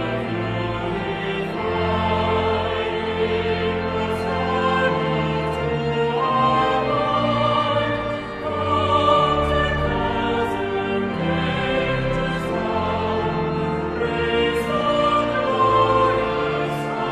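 A hymn sung by several voices over sustained, slowly changing chords.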